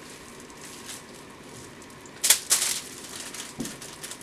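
Pink hair dye squeezed from its tube into a plastic tray of white conditioner and then stirred with a tint brush: faint squishing and stirring, with two short, loud noisy sounds a little over two seconds in.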